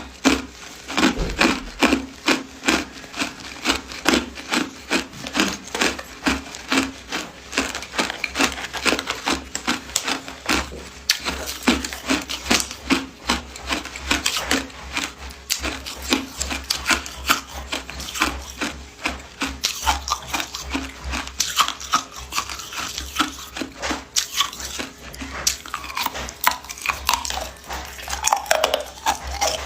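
Ice being chewed close to the microphone: a continuous run of sharp, crisp crunches, about two to three a second.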